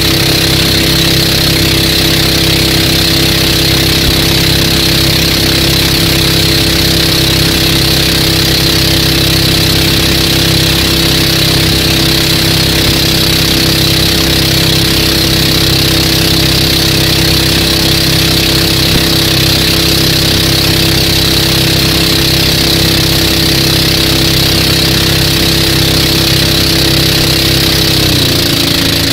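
A used 420 cc (13.5 HP) single-cylinder boat engine running steadily on LPG through a converter kit, pushing the boat along. Near the end its note drops as it is throttled back.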